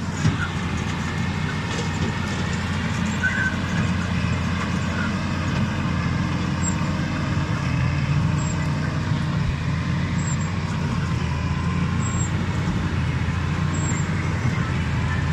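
Massey Ferguson 6485 Dyna-6's six-cylinder diesel engine running steadily under load while it pulls and drives a Krone Big Pack 1270 square baler picking up hay. The combined engine and baler drone grows slightly louder around the middle as the rig passes close.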